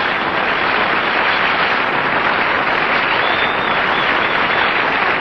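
Studio audience applauding steadily after the end of a song.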